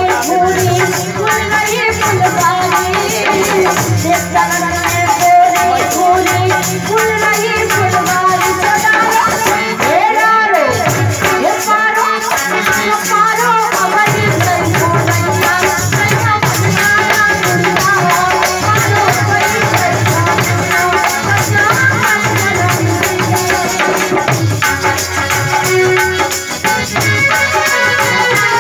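Live folk song: a woman sings over a harmonium's held chords, with a fast rattling percussion and a low drum beat keeping time.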